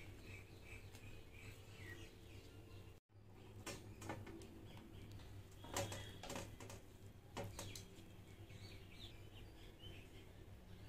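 A metal spoon clinking and scraping against a steel plate several times, loudest about six seconds in, with faint bird chirps in the background.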